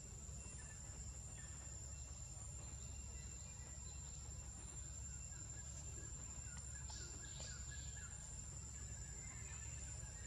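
Steady high-pitched insect drone over a low rumble, with a few faint chirps about seven seconds in.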